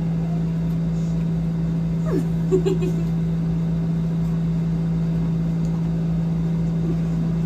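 A steady low hum at one unchanging pitch over a low rumble, with a brief faint voice about two and a half seconds in.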